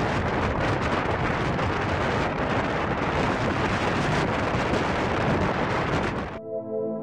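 Strong blizzard wind buffeting the microphone, a dense, even rush of noise heavy in the lows. About six seconds in it cuts off abruptly and ambient music with sustained tones begins.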